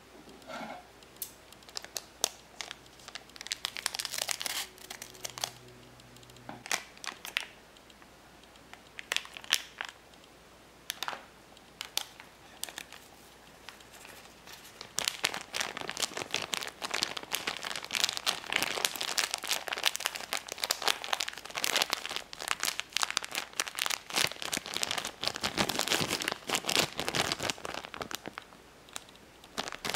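Thin plastic bag and foil sachet crinkling as candy powder is poured in and kneaded by hand. Scattered crackles at first, then dense, continuous crinkling from about halfway through as the bag is squeezed and worked.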